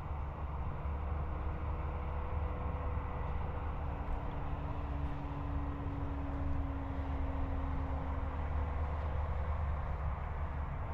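Electric RC airplane's motor and propeller whining in flight, a faint steady tone that drops slightly in pitch about two seconds in, under heavy wind rumble on the microphone.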